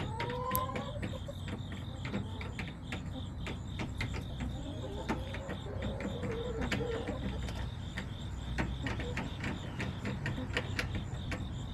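Backyard chicken coop ambience: hens making a soft rising call in the first second and a wavering call around the middle, amid many scattered sharp clicks and taps, over the steady pulsing chirp of insects and a low rumble.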